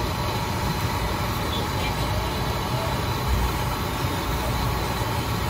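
Steady low rumble and hiss of a busy street-food stall, even throughout with no distinct events.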